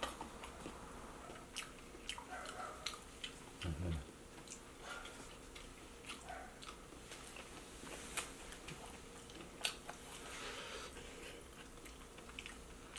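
Someone chewing and eating close to the microphone: scattered small clicks and smacks, with a brief low thump about four seconds in.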